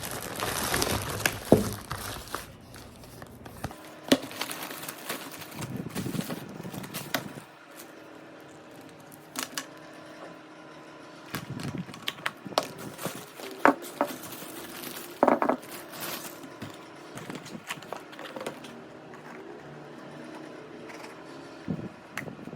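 Crinkling and handling sounds with scattered sharp clicks and knocks, busiest in the first few seconds.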